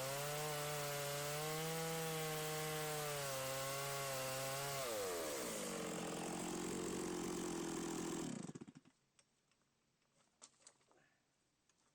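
Stihl MS 660 two-stroke chainsaw on an Alaskan mill, running hard with its pitch wavering. About five seconds in the revs drop, and about eight and a half seconds in the engine winds down and stops, leaving a few faint clicks.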